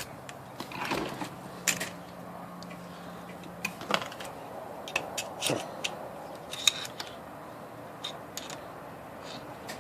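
Scattered light clicks and short scrapes of hand tools and small metal parts on an IBM Selectric typewriter's cycle clutch assembly during hand reassembly, with a faint steady hum from about one to nearly four seconds in.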